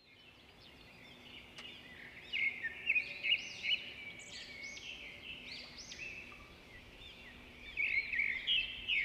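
Wild birds singing and calling: many quick, arching chirps that overlap, busiest from about two to four seconds in and again near the end.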